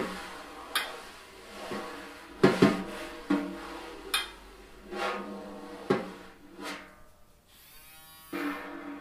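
Snare drum being tapped and struck irregularly, each sharp hit followed by a ringing drum tone. A brief buzzing rattle comes near the end, just before a last hit.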